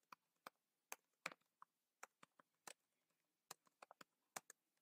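Computer keyboard keys being typed on, faint clicks at an uneven pace.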